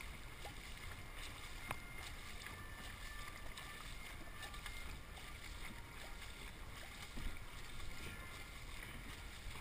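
Faint, steady water noise of a dragon boat gliding with its crew not paddling, with a low rumble of wind on the microphone and a few light knocks.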